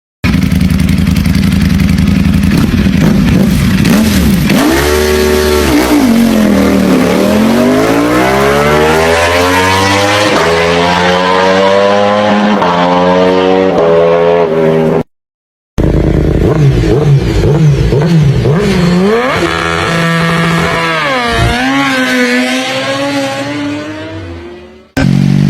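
Superbike engines and exhausts revving and accelerating, their pitch sweeping steeply up and down. The sound cuts off abruptly about 15 seconds in and restarts as a different bike, then cuts again near the end.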